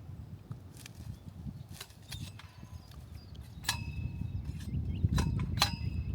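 A metal planting tool striking stones in the soil: about six sharp clinks, two of them with a brief metallic ring, over low thudding rumble that builds in the second half.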